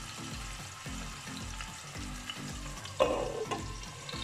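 Chicken drumsticks sizzling in hot olive oil in a steel pan. About three seconds in there is a sudden clatter, then a few smaller knocks, as a glass lid is set onto the pan.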